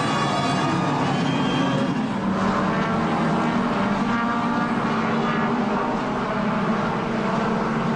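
BMW M3 E46 race car engine running at speed, a steady continuous engine note.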